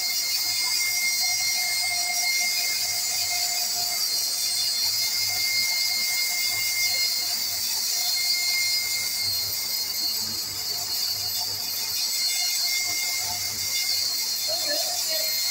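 Large vertical band saw running and cutting through a laminate floating-floor plank: a steady high whine and hiss over a low hum.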